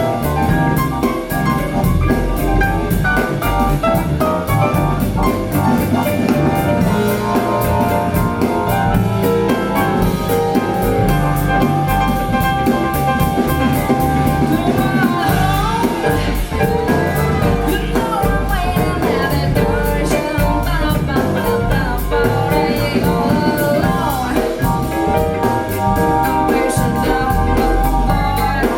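Jazz-blues song with a steady drum-kit beat, played back through a pair of Wharfedale Linton Heritage bookshelf speakers.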